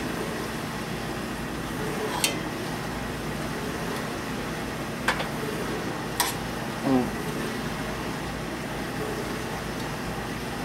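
A metal utensil clicks against a cast iron skillet three times as pork chops are set back into the pan, over a steady hiss.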